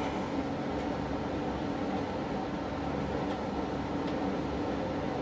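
Steady mechanical background hum, with a few faint small clicks as a blade is fitted into a line engraver's handle.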